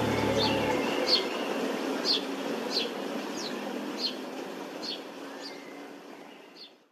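Birds chirping: short, repeated downward-slurred calls, one or two a second, over a soft outdoor hiss, fading out to silence near the end.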